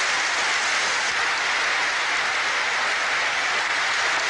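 Large crowd applauding steadily, a dense continuous clapping of many hands in an ovation.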